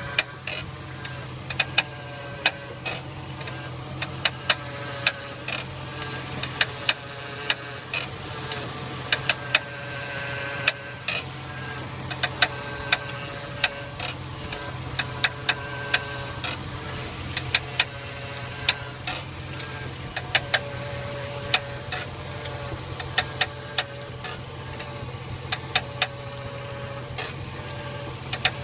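A lifted 2002 Jeep Grand Cherokee's steering and front suspension creaking as the wheel is turned, with the engine idling. Sharp irregular clicks and pops come several times a second at their busiest, along with short wavering squeaky creaks. The owner does not know what causes it.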